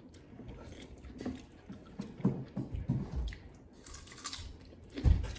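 Close-up chewing and wet mouth sounds of a person eating a mouthful of rice and curry, with small irregular smacks and crunches, and a dull knock near the end.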